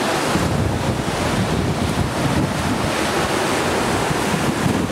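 Wind buffeting the microphone over the steady rush of surf, a loud low rumbling noise.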